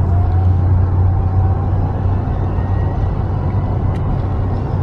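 Steady in-cabin drone of a Toyota cruising on a highway: a constant low engine hum under road and tyre noise.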